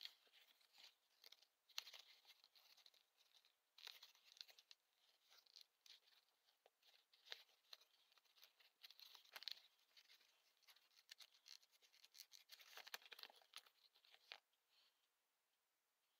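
Faint scratching and crackling of fingers handling and flexing a brittle old leather knife sheath and its rusted metal belt-loop piece, coming in scattered spells and stopping near the end.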